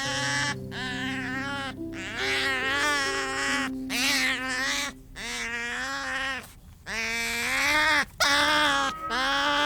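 A series of about eight drawn-out animal calls, each around a second long and bending in pitch, with short gaps between them.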